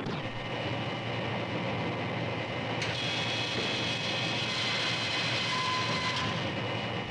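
Steady hum and whine of submarine missile-compartment machinery, with high steady tones over it. A second set of higher tones comes in about three seconds in and cuts off about six seconds in, with a short lower tone just before.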